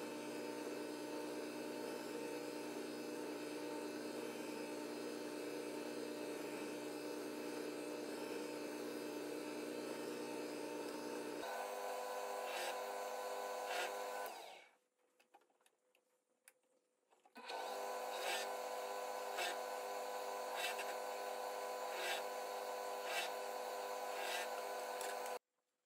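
Benchtop drill press motor running steadily while the bit bores into a thin wooden strip, with a light regular clicking over the hum in the second half. The sound dies away for about three seconds partway through, then comes back.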